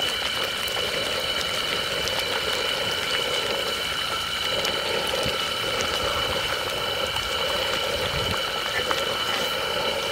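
Thick chicken curry simmering and bubbling in a clay pot, with a steady high whine running through it.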